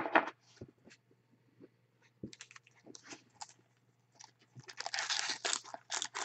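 Soccer trading cards being handled and flicked against each other, making a scatter of light clicks and snaps. From about four and a half seconds in, a foil card pack wrapper crinkles steadily as it is handled.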